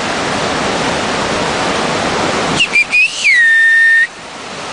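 Steady rushing noise, then about two and a half seconds in a loud, high whistle: a few short notes, then one long note that drops slightly and holds for about a second before cutting off suddenly.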